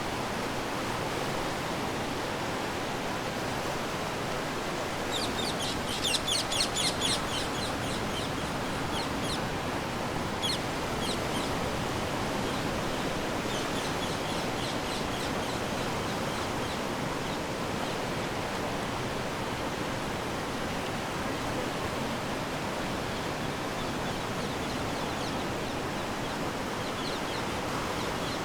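Steady wash of ocean waves breaking on the shore. About five seconds in, a bird gives a rapid run of high chirps, with shorter, fainter bouts of chirping a few seconds later.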